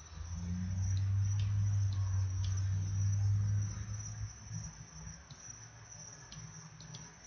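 Computer mouse clicking now and then, about eight sharp clicks, as freehand pencil strokes are drawn in Blender. Under it runs a thin steady high whine, and a low hum is loudest for the first four seconds or so, then fades.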